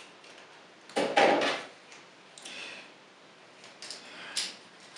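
Hard plastic toy parts being handled and pegged together: a short clatter of knocks about a second in, then a few lighter single clicks.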